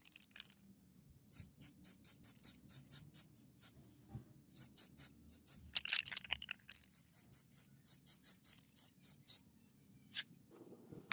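Rapid back-and-forth scraping strokes, about four a second, from hand abrasive work on the rusty sword's metal. They pause briefly about four seconds in, run thicker around six seconds, and stop shortly before a single click near the end.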